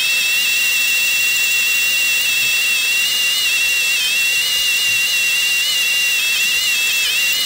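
Kobalt cordless drill running a 1/4-inch bit through a broken bolt deep in a Pontiac 350 engine block's bolt hole. It gives a steady high whine that dips slightly in pitch twice.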